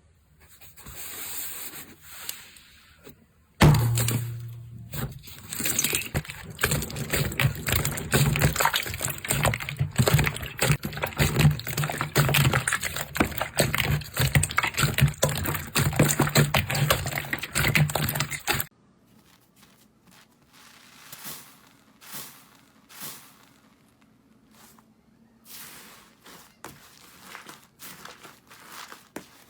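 Slime being squeezed and poked by hand: a dense run of wet crackles and pops that cuts off abruptly after about fifteen seconds, followed by sparser, quieter pops and clicks.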